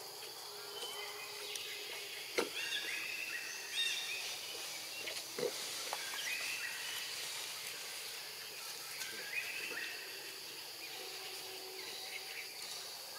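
Outdoor wildlife ambience: a steady high insect drone with repeated short, high chirping calls in small runs, and a few sharp snaps, the loudest about two seconds in.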